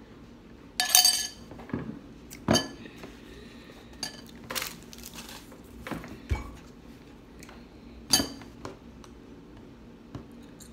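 A metal spoon clinking against an empty glass bowl: several separate ringing clinks spread through, with a dull thump about six seconds in.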